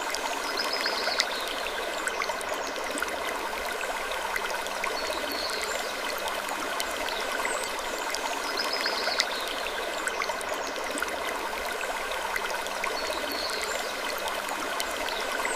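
Steady flowing-water noise like a stream, even in level, with faint short high chirps every few seconds.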